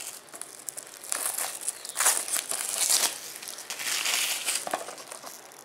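Clear plastic shrink wrap being peeled off a DVD case and crinkling in the hands, in irregular bursts that die down near the end.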